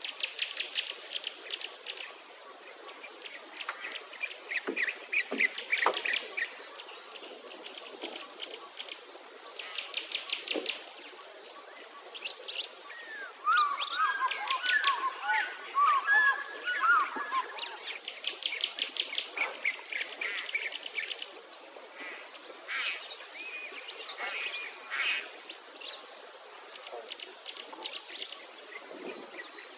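Outdoor birdsong: many birds chirping and trilling in quick repeated notes, with a faint high insect buzz pulsing on and off. For a few seconds in the middle, louder, busier chattering calls stand out.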